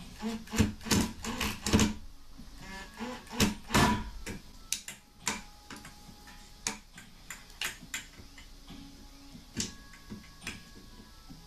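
Cordless drill-driver running in short bursts to drive the screws that hold the ceiling fan blades to the motor hub, with sharp clicks and knocks of metal parts. It is busiest in the first four seconds, then thins to scattered clicks.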